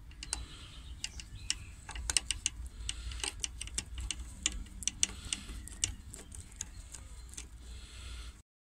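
Irregular clicks, two or three a second, from a socket driver with a screwdriver-style handle working a nut on a motor spade's carburetor mount, over a low rumble. The sound cuts off suddenly near the end.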